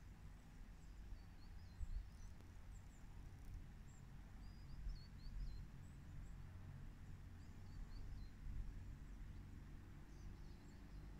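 Low rumble of wind, with faint high chirps of small birds in short runs during the first half and again near the end.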